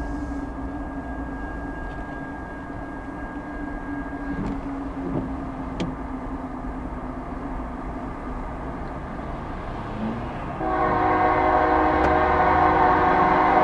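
Diesel freight locomotive's air horn sounding a loud, steady multi-note chord, starting about three-quarters of the way in and held. Before it, a steady low rumble.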